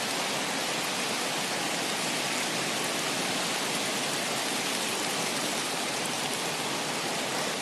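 Rain and wind ambience: a steady, even hiss of rain and running water that does not change.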